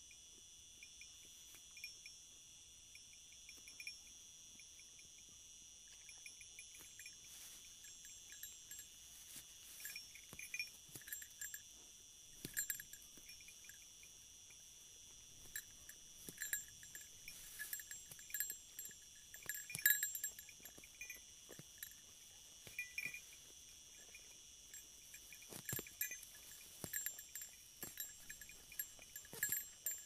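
Crickets trilling steadily in the background, with irregular light clinks and rustles from sheep grazing in dry grass, coming more often after the first third, the loudest about two thirds of the way through.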